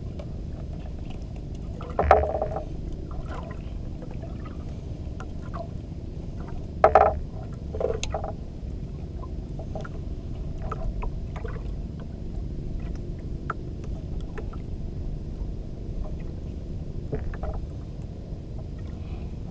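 Knocks and bumps on a small wooden banka boat over a steady low rumble, with two loud knocks about 2 and 7 seconds in and a smaller one just after.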